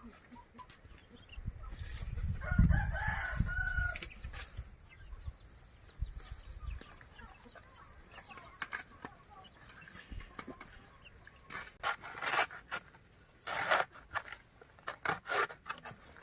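A rooster crows and chickens cluck about two to four seconds in, over a low rumble. From about eleven seconds in comes a run of short sharp cutting and scraping strokes as a knife hacks into the fibrous stem of a banana plant.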